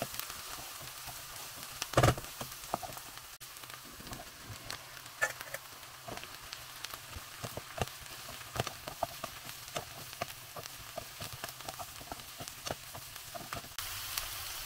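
Grated onions and chopped peppers sizzling and crackling in oil in a frying pan, with a single louder knock about two seconds in.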